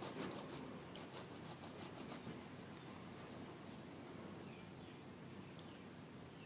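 A knife sawing through the crust of a white loaf, the crust crackling in quick rasps during the first couple of seconds. Faint bird chirps repeat in the background from about halfway on.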